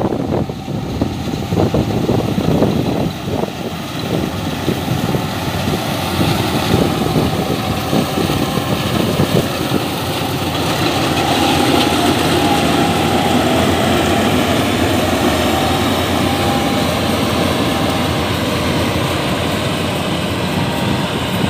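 Yanmar 82V crawler combine harvester running as it harvests rice: a steady engine and machinery drone that grows louder as the machine comes close. A steady whine joins in from about eleven seconds.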